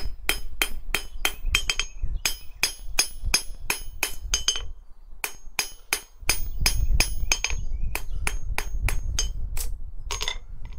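Blacksmith's hammer striking a hot iron bar on a steel anvil, steady ringing blows about three to four a second with a brief pause a little before halfway: forging the foot of a tripod leg.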